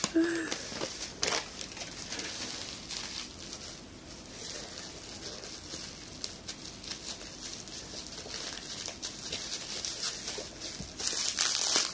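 Paper wrapping rustling and crinkling as a gift is unwrapped by hand, with scattered small crackles.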